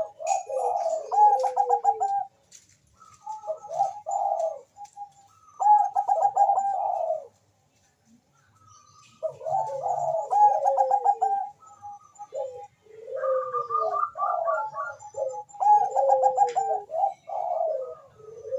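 Bangkok-type perkutut (zebra dove) cooing: repeated phrases of fast trilling coos, one after another, with a pause of about two seconds near the middle.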